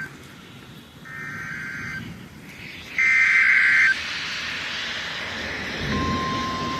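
Emergency Alert System data header: short buzzy bursts of warbling digital tones, about a second each with a second's gap, the last one loudest, followed by a hiss. About six seconds in, a steady single-pitch alert tone starts, the National Weather Service warning alarm that comes before the spoken severe thunderstorm warning.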